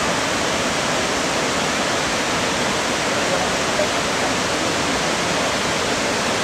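Ravana Falls, a waterfall about 25 m high, pouring and splashing in a steady, loud rush of water.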